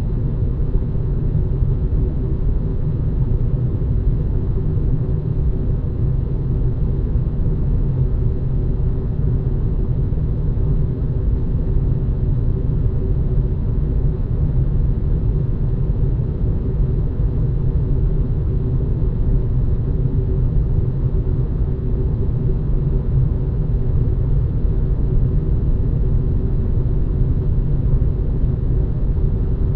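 Deep air-vent ambience: a steady rush of air through ventilation ductwork with a heavy low rumble and a faint hum, deep and muffled, unchanging throughout.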